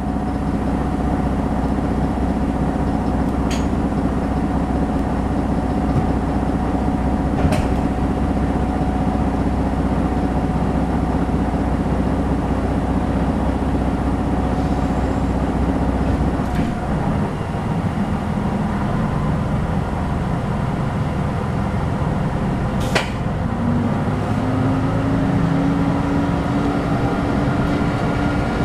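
Diesel engine of a JR Shikoku N2000-series diesel railcar heard from inside the passenger cabin, running with a steady low hum. The hum changes about halfway through, and a new, slightly higher steady tone comes in near the end as the engine note picks up. A few sharp clicks are heard along the way.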